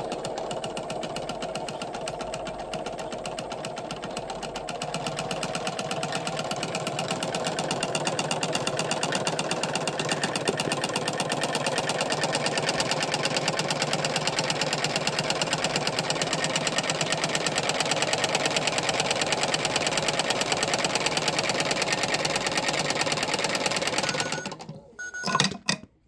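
Toy washing machine's small electric motor running steadily with a fast, even buzzing rattle as its drum spins paper prisms; it gets a little louder about five seconds in. Near the end it cuts out, with a couple of sharp clicks just before it goes quiet.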